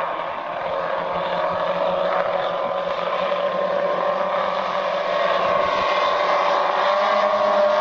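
The four 160cc engines of a giant radio-controlled model bomber droning in flight, their pitch wavering slightly as it passes overhead.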